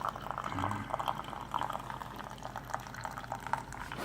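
Keurig K-series single-serve coffee maker brewing: coffee streams into a mug with a steady liquid patter over a faint low hum from the brewer.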